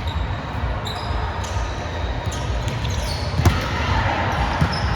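Volleyball play on a gym court: one sharp smack of the ball about three and a half seconds in and a fainter one near the end, with short shoe squeaks on the court floor over a steady hall din.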